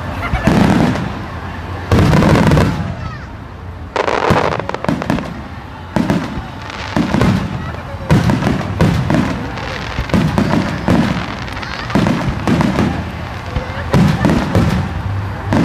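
Starmine fireworks display: aerial shells bursting in quick succession, each bang followed by a rolling boom. A few big bursts come about two seconds apart at first, then the firing turns denser, several bursts a second, from about six seconds in.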